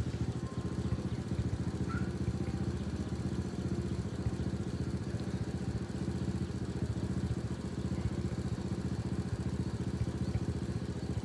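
An engine running steadily at idle: a low, even hum.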